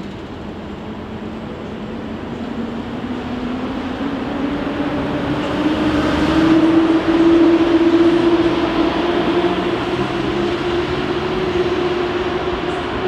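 Electric train accelerating, its traction motors whining in one tone that rises slowly in pitch as it gathers speed, over the rumble of the train. It grows louder towards the middle and eases a little near the end.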